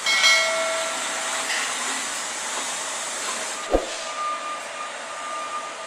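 Concrete mixer truck running, heard as a steady hissing rush of engine and air noise, with one sharp thump just under four seconds in.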